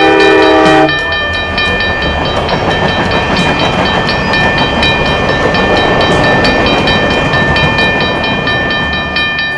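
Train sound effect: a short whistle blast in the first second, then the steady rumble of the train running on the rails, with light background music underneath.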